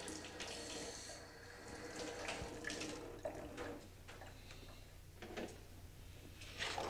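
Water running at a utility sink while things are rinsed and handled, with a few light knocks along the way and a louder clatter near the end.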